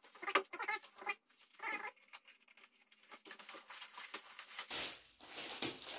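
Shiny plastic gift wrapping crinkling and rustling as a present is unwrapped, loudest near the end. A few short voice-like sounds come in the first two seconds.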